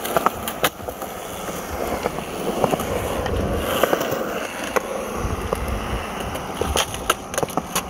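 Skateboard wheels rolling over concrete, a steady rumble broken by scattered sharp clicks and ticks.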